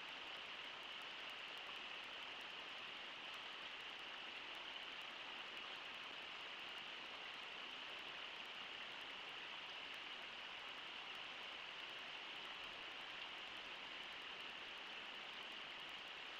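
Steady rush of the Brooks River flowing over shallow riffles, an even, unbroken water noise.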